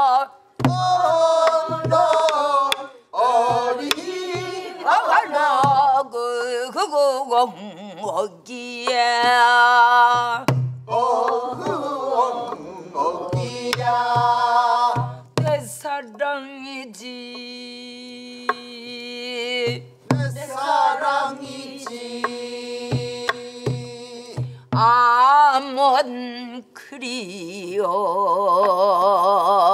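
A woman singing a Namdo (southern Korean) folk song with a wide, wavering vibrato, keeping time with stick strokes on a buk barrel drum. The class joins in on some phrases.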